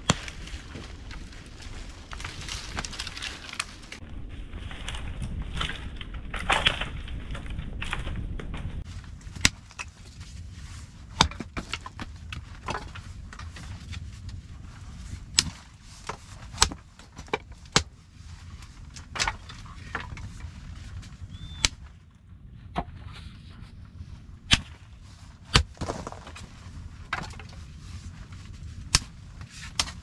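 Wood being struck with a tool: sharp single knocks, irregularly every one to two seconds, beginning about nine seconds in after a stretch of rustling.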